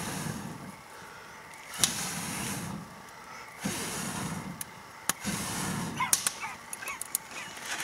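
A person blowing hard on smouldering tinder in a fire pit to coax it into flame: about four long breaths, roughly two seconds apart, with the kindling giving sharp little cracks and snaps, more of them near the end as it catches.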